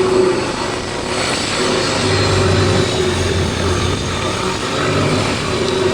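Longtail boat's inboard engine running steadily under way on a rough sea crossing, its note swelling and easing a little, over a constant hiss.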